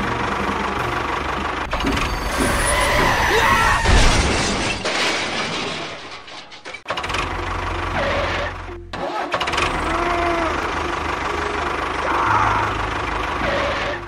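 Engine running with a steady low buzz that cuts out briefly about six seconds in and again about nine seconds in, picking up again each time, with a few short higher-pitched gliding sounds over it.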